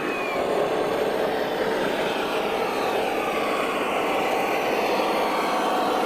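Radio-controlled model MAZ-537 heavy truck running: a steady motor and drivetrain noise that holds at an even level.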